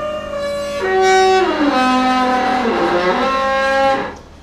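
Background music: a melody of long held notes that step from one pitch to the next, fading out near the end.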